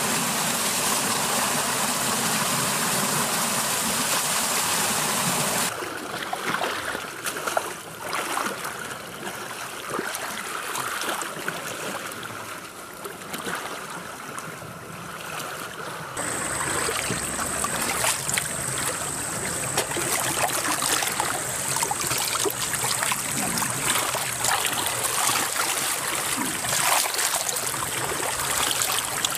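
Shallow muddy creek water rushing steadily, with splashing as people in ghillie suits crawl and wade through it. The sound changes abruptly twice, about six and sixteen seconds in, and is quieter in the middle stretch.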